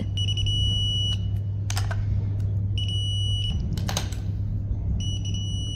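Digital torque wrench beeping as each busbar nut reaches its set torque: three high-pitched beeps, each about a second long and roughly two seconds apart. A few sharp metallic clicks fall between the beeps, over a steady low hum.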